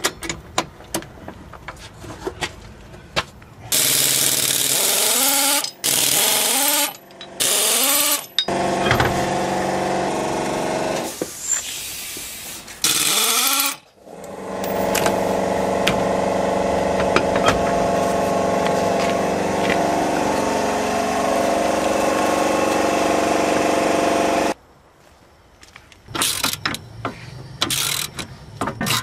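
Impact wrench on the car's front wheel nuts, run in several short bursts that rise and fall in pitch, then spun up and held running for about ten seconds before it stops suddenly. Sharp clicks and knocks from hand tools follow near the end.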